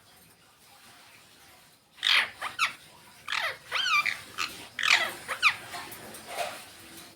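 Indian ringneck parakeet calling: after a quiet first two seconds, a run of sharp squawks and chirps, several sliding downward and one wavering, over about four seconds.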